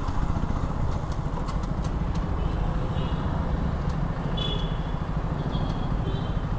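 KTM Duke 125's single-cylinder engine running steadily at low revs as the motorcycle slows and comes to a stop, then idling.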